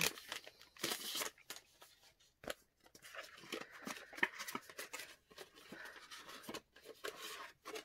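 Clear plastic packaging bag crinkling and rustling as a planner insert with its paper header card is slid out and handled, with irregular small clicks and crackles.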